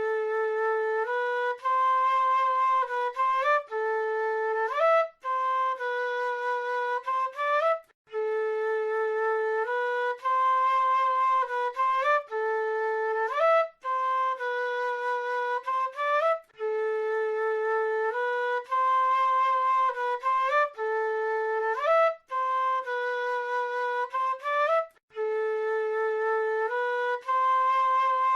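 South American flute playing a slow, repeating melodic phrase, held notes in the mid range, each phrase ending with an upward slide and followed by a short breath-like pause.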